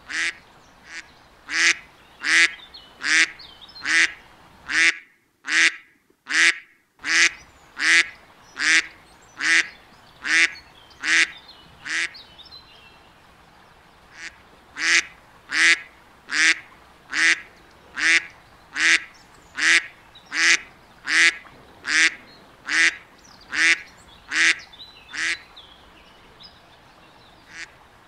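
Mallard duck quacking over and over in an even rhythm, about three quacks every two seconds, with two short pauses, one about twelve seconds in and one near the end.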